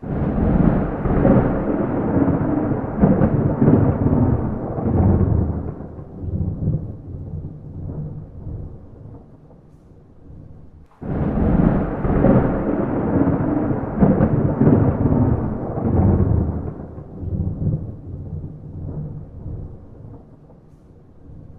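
Two long rolls of thunder with no rain. Each starts suddenly, rumbles deep and loud for several seconds, then fades. The second begins about halfway through.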